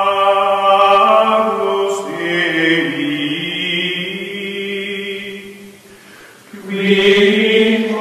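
Choral chanting music: voices holding long sustained notes together, shifting note about two seconds in, fading down around six seconds and swelling back near the end.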